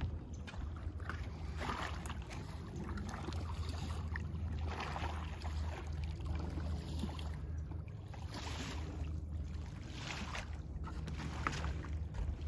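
Wind rumbling on the microphone, with small lake waves lapping against a rocky shore in soft surges every few seconds.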